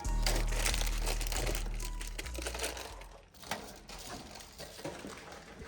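Snack wrappers and packaging crinkling and rustling, with scattered light clicks and knocks as items are handled, over a steady low hum that fades out about three seconds in.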